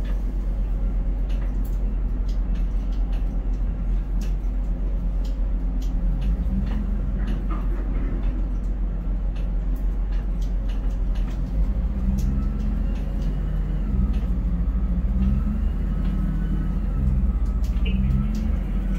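Steady low drone of a ship-to-shore container crane's machinery, heard inside the operator's cab while the spreader is lowered into the ship's hold.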